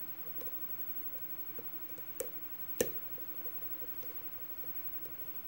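Lock pick and tension wrench working the pins of a brass pin-tumbler lock cylinder under light tension: faint small metallic clicks, with two sharper clicks a little over two seconds in, about half a second apart.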